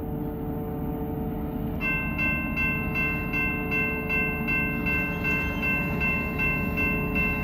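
Railroad grade-crossing warning bell starting about two seconds in and ringing in a rapid, even rhythm of about three strokes a second: the crossing has activated for an approaching train. A low rumble runs underneath.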